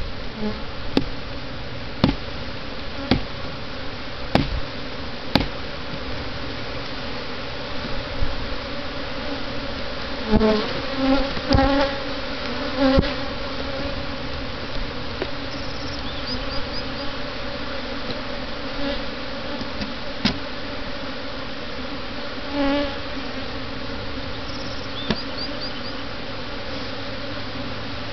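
Swarm of honeybees buzzing steadily in the air around an open hive, with louder buzzes as single bees pass close by; the colony has been disturbed by the hive being worked. A few sharp knocks sound in the first five seconds and once more past the middle.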